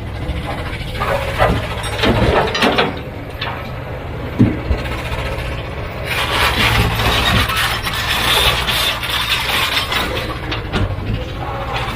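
Heavy diesel machinery running steadily, with sharp clanks and knocks in the first few seconds and a harsh grinding, scraping noise from about six seconds in.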